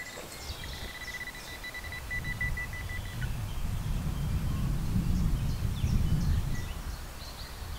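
A metal detector's high, rapidly pulsing electronic beep held for about three seconds, then a low rumbling noise that swells in the middle and fades near the end, with short bird chirps over it.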